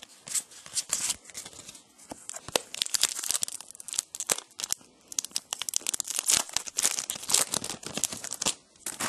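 A trading-card pack wrapper being torn open and crinkled by hand: rapid, irregular crackling and tearing, densest from about two and a half seconds in until near the end.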